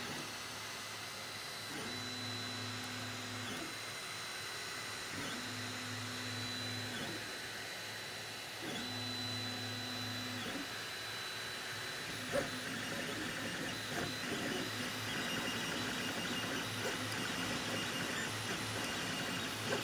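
FDM 3D printer running a print, its stepper motors humming in even tones on long moves, roughly one every three and a half seconds. From about twelve seconds in the motion turns busier, a varied whirring with small clicks, over a faint steady high whine.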